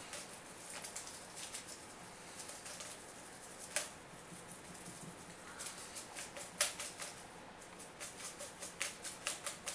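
Folded paper slips tumbling and ticking against the sides of a bowl as it is shaken to mix them. Faint rustling at first with the odd sharp tick, then from about halfway a run of quick light taps that gets faster toward the end.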